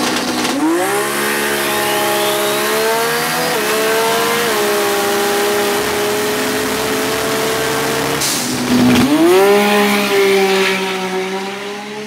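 Turbocharged 2JZ inline-six of a Toyota Supra drag car at full throttle on a pass. The engine note climbs steeply about half a second in and holds high. About three-quarters of the way through it drops briefly at a gear change, then climbs again.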